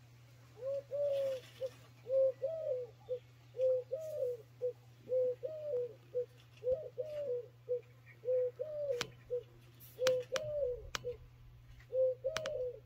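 A dove cooing in repeated three-note phrases, a short note, a longer arched one and a short one, about one phrase every second and a half. A few faint sharp clicks and a low steady hum lie underneath.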